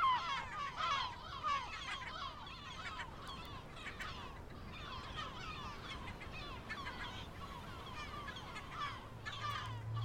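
A colony of yellow-legged gulls calling: many short, overlapping cries and yelps in a dense chorus, busiest in the first two seconds and again near the end.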